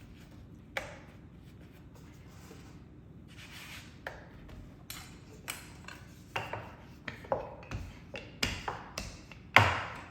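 Kitchen utensils tapping and knocking against a cutting board while pie dough is worked: a few soft scrapes, then taps that come more often in the second half, the loudest knock near the end.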